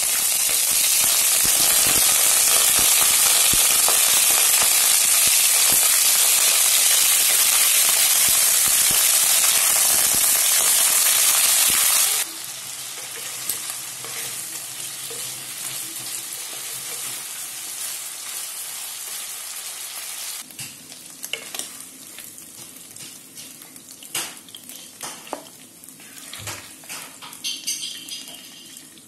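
Raw chicken pieces hitting hot oil in a non-stick wok and sizzling loudly and steadily. About twelve seconds in it cuts to a quieter sizzle as the browning pieces fry, and in the later part a wooden spatula scrapes and taps against the pan as it stirs.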